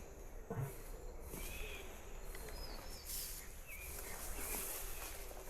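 Outdoor ambience: a few short bird chirps over steady background noise.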